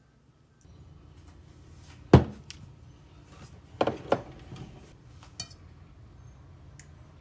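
Kitchen clatter: a sharp knock about two seconds in, then a few clinks and taps of a spoon against a glass sugar jar and a stainless steel bowl as brown sugar is spooned onto berries.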